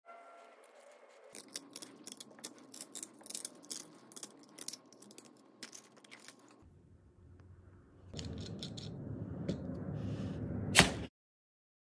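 Close handling sounds of a cloth-backed sandpaper sleeve and its wooden sanding drum: a scatter of light clicks and taps, then a steadier scraping rustle of abrasive cloth being pushed and rubbed onto the drum about eight seconds in, ending with one sharp, loud click just before it cuts off.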